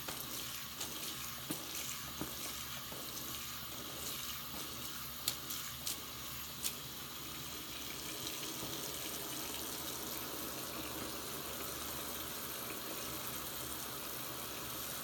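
Tap water running into a bathroom sink full of soap suds, a steady hissing splash. In the first half a hand stirs through the foam, with a few sharp clicks and splashes; after that the flow runs on smoothly.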